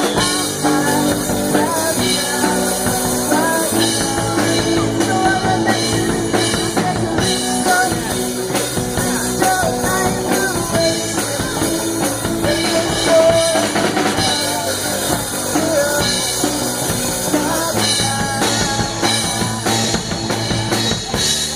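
Rock music: a band with drum kit and guitar, and a singing voice carrying the melody.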